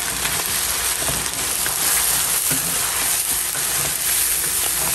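Spice-coated lamb pieces sizzling in oil in a nonstick pan, a steady frying hiss, while two wooden spatulas toss and stir them with light scraping clicks.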